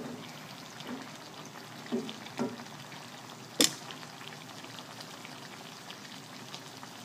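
Chicken liver guisado simmering in an aluminium wok, a steady low bubbling sizzle. A spoon gives a few soft knocks against the wok in the first couple of seconds, and there is one sharp click a little past halfway.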